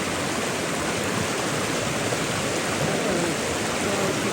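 Steady rushing of a river or stream, a constant even wash of water noise.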